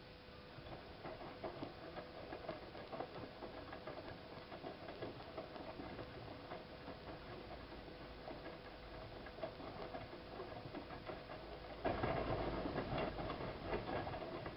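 Siemens iQ WIQ1430 front-loading washing machine in its wash phase: after a pause the drum starts turning about half a second in, with a steady motor hum and the irregular patter and slosh of wet laundry tumbling. The tumbling gets louder for the last couple of seconds.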